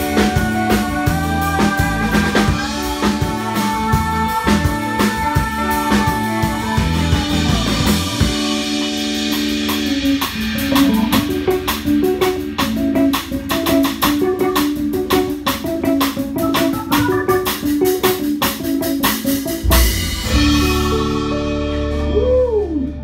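Band playing an instrumental passage with drum kit, guitar and organ-like keyboard. About twenty seconds in the drums stop and held chords ring on, with a falling slide near the end.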